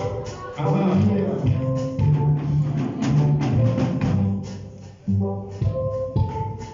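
Live church band music: keyboard notes and bass lines over drums and percussion, with a brief drop-off a little after five seconds.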